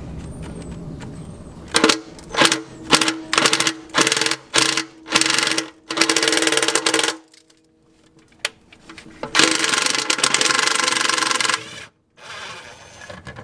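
A power tool run in a string of about seven short bursts, then two longer runs of about two seconds each.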